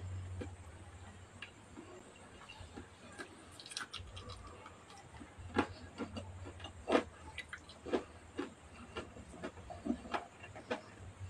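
Close-up eating sounds: fried chicken being chewed and pulled apart by hand, heard as irregular wet mouth clicks and lip smacks, a few of them sharp and loud, over a faint low hum.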